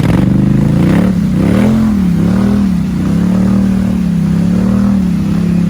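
ATV engine running and being revved, its pitch rising and falling a few times, then holding steady at a fast idle or cruise.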